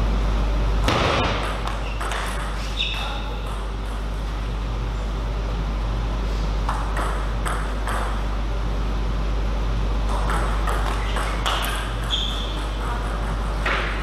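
A celluloid table tennis ball ticking off rubber-faced paddles and bouncing on the table during rallies: sharp clicks in short runs, with pauses between points. A steady low hum runs underneath.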